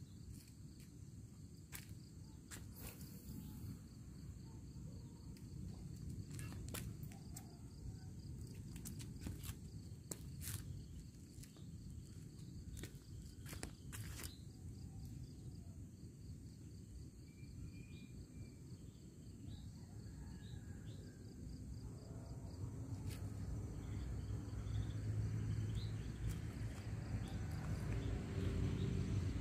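Outdoor ambience: a steady, high-pitched drone of insects with a low rumble underneath that grows louder about two-thirds of the way through, and scattered faint clicks and knocks.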